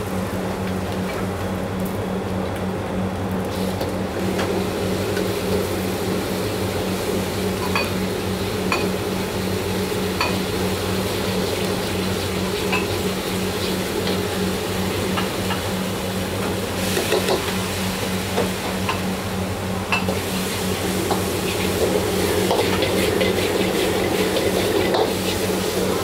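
Food frying in a carbon-steel wok over a gas burner: garlic, then sauce, then vegetables and meat sizzle while a metal ladle scrapes and clinks against the wok, over a steady low hum. The sizzle grows louder in the last few seconds as the wok is tossed.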